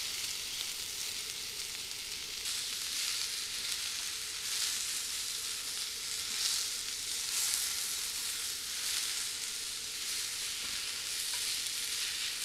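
Onion, enoki and king oyster mushrooms sizzling in an oiled frying pan as they are stir-fried: a steady hissing sizzle that swells now and then as the food is turned.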